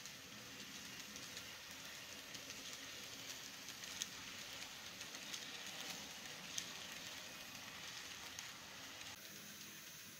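Model double-stack container train rolling past on its track: a faint steady rumble and hum of wheels and motor under a steady hiss, with a few sharp clicks. The sound drops slightly about nine seconds in.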